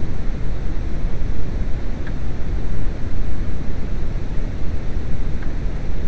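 Steady low rumbling noise, with two faint light clicks, one about two seconds in and one near the end.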